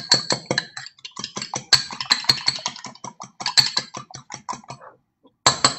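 A fork beating eggs in a ceramic mug: rapid clicking and tapping against the mug, several strokes a second, with a brief pause about five seconds in.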